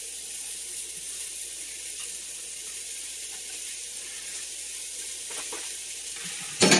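Potatoes, carrots, celery and onions sizzling in hot oil in a stew pot, a steady hiss. Just before the end comes a brief loud clatter.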